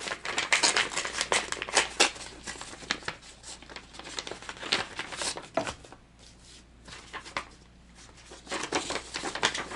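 Paper envelope being opened by hand: a run of crisp paper rustles, crackles and tears. It goes quieter for a couple of seconds past the middle, then rustles again as the folded letter and stickers are slid out near the end.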